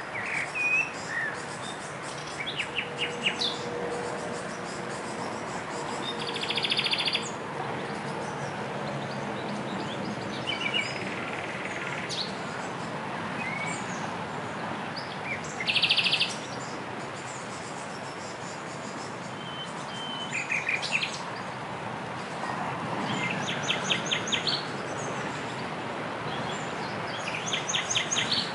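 Several songbirds singing short phrases of quick repeated notes every few seconds, over a steady background hiss. The loudest phrases are dense high trills about a quarter and halfway in.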